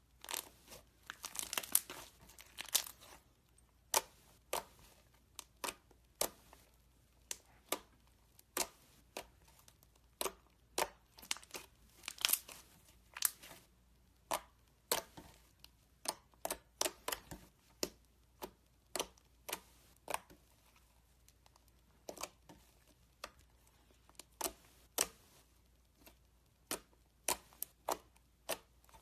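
Slime being squeezed and mixed by hand, giving a run of irregular sticky clicks and pops, some in quick clusters and others singly.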